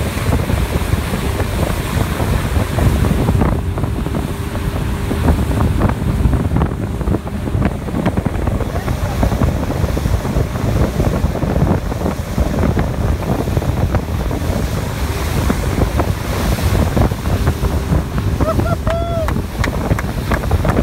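Wind buffeting the microphone over the rush of a tow boat's wake and the boat running at speed: a loud, steady noise heavy in the low end. A short pitched sound rises and falls briefly near the end.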